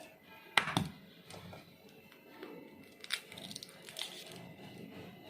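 A sharp crack about half a second in, then faint crackling and crinkling: the shell of a hard-boiled, ice-cooled egg being cracked and peeled.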